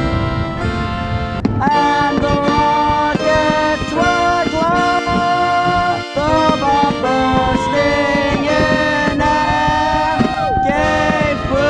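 Music with a melody of held notes, some sliding into pitch, over accompaniment.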